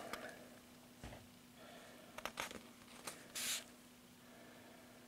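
Quiet handling of a paperback manga volume: a few soft clicks and taps from the fingers on the book, then a brief rustle of paper pages about three and a half seconds in, over a faint steady hum.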